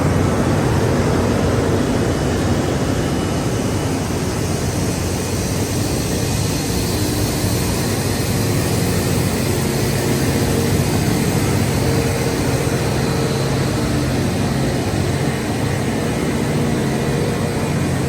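Heavy diesel railway machinery running steadily: a constant low engine drone under a broad, even hiss that holds level throughout.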